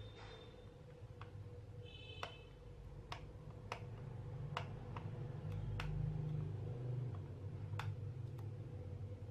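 Sharp plastic clicks and ticks, about ten, irregularly spaced, as a thin pry tool works around the seam of a Fuhlen computer mouse's plastic shell to pry it open. There is a short squeak about two seconds in, over a low handling rumble.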